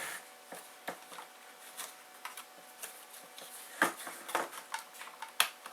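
Scattered small plastic clicks and knocks as the dashboard's instrument-cluster trim is worked by hand against its clip-in side tabs, the loudest knock about four seconds in.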